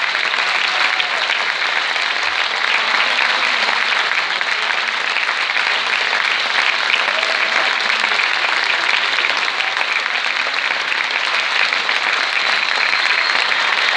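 Large concert audience applauding steadily, a dense, unbroken clapping.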